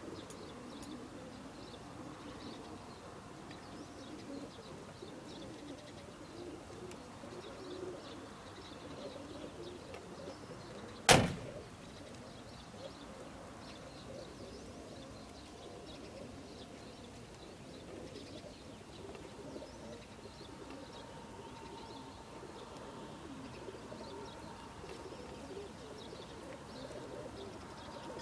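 Many racing pigeons cooing together inside the crates of a pigeon transport truck, a steady chorus. A single sharp knock about eleven seconds in is the loudest sound.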